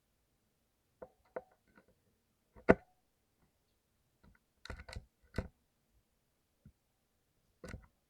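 Blue clicky mechanical keyboard switches, lubed, being pressed now and then: sharp single clicks at uneven intervals, with a quick run of several presses about halfway through and one loud click near the third second.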